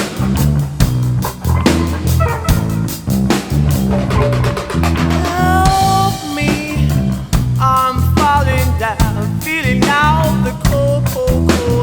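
Background rock music with a steady drum beat, bass and guitar; a wavering lead line comes in partway through.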